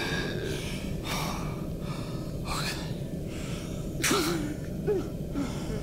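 A man gasping and breathing hard in distress, with several sharp breaths a second or so apart and a brief whimpering sob about four seconds in.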